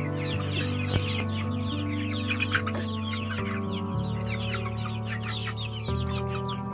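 A flock of eight-week-old chicks calling all together: many short, high, falling peeps overlapping continuously.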